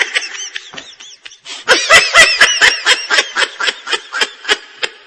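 A person laughing: soft laughs at first, then a louder run of short, evenly repeated 'ha' bursts about four a second, tapering off near the end.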